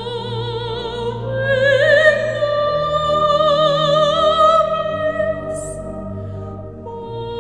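Operatic soprano singing with wide vibrato over sustained pipe-organ chords and a low held bass. The voice climbs to a long high note about one and a half seconds in and fades out near the end, leaving the organ.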